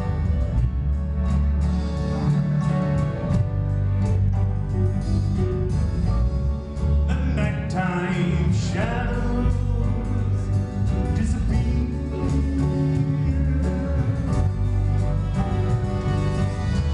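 A live band playing a song with guitar and a steady beat over a strong bass, and a male voice singing, as in a sound check.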